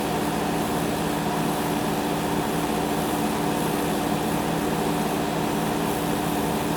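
Excavator diesel engine running steadily, with an even engine hum and no change in pitch.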